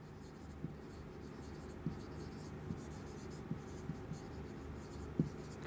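Marker pen writing on a whiteboard: faint, irregular scratchy strokes as words are written, over a steady low hum.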